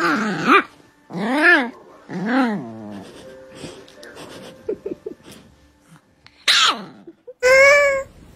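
Puppy howling three times in short rising-and-falling calls about a second apart, then quieter snuffly clicks. Near the end a cat starts a loud, drawn-out meow.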